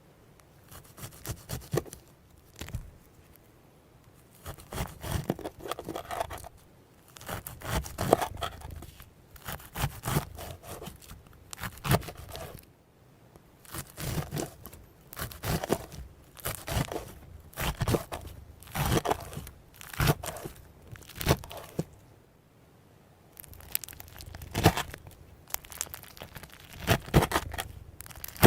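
Konjac slime being squeezed and pulled apart by hand, giving clusters of sticky crackles and pops every second or two, with a few short pauses.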